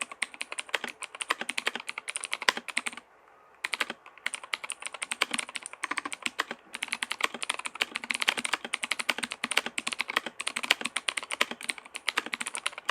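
Fast typing on a K28 87-key mechanical keyboard with blue switches: a steady stream of crisp key clicks, with a brief pause about three seconds in.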